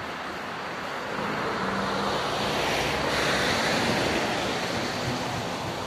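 Mercedes-Benz semi-truck with a curtain-sided trailer driving past close by. Its tyre and engine noise swells to a peak about three to four seconds in, then fades as a car follows behind it.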